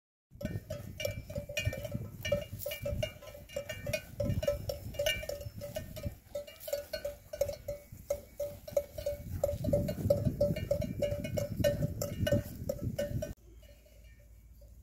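Cattle bells clanking irregularly, several strikes a second, as the herd grazes, over a low rumbling noise. About thirteen seconds in the sound drops sharply and the bells go on more faintly.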